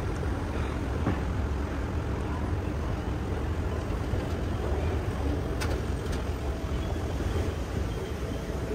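Escalator running, a steady low mechanical rumble heard while riding it, with two faint clicks about two-thirds of the way through.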